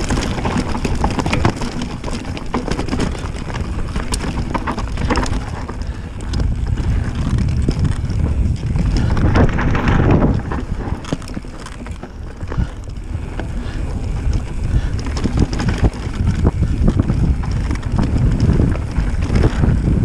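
Mountain bike descending a rough, rocky trail at speed: a steady low rumble of wind on the microphone and tyres on the ground, with frequent knocks and rattles as the bike hits rocks.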